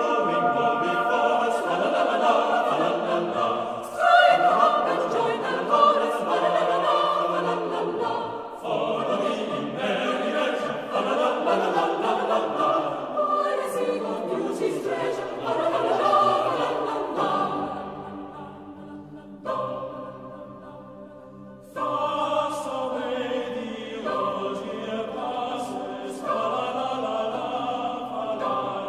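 Background choral music: a choir singing slow, sustained phrases. It falls quieter about two-thirds of the way through and comes back in suddenly a few seconds later.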